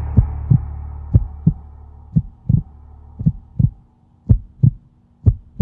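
Heartbeat sound effect: paired low thumps, lub-dub, about once a second, over the fading tail of a deep boom that dies away over the first few seconds.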